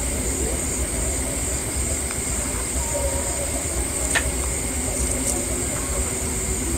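Steady outdoor ambient noise: a constant high-pitched hiss over a low rumble, with a single brief click about four seconds in.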